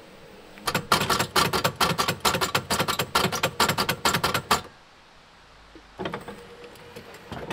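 C4 Corvette pop-up headlight mechanism chattering as the headlight raises: a rapid clatter of about six clicks a second for roughly four seconds, then a shorter, fainter burst near the end. The chatter is the sign of stripped nylon drive gears in the headlight motor.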